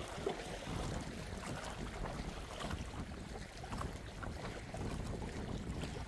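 Sea water washing and lapping, with wind on the microphone as a steady low rumble and a few faint small splashes.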